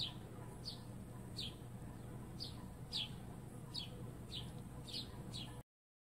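A small bird chirping over and over: short, high chirps that fall in pitch, about one every half to one second, over a faint low hum. The sound cuts off suddenly near the end.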